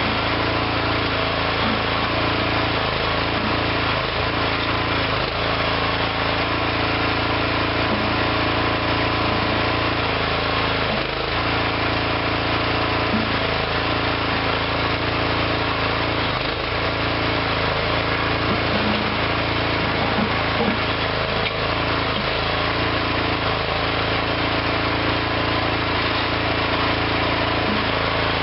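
Small engine of a homemade hydraulic backhoe running steadily, with short dips in its note and small clicks every few seconds.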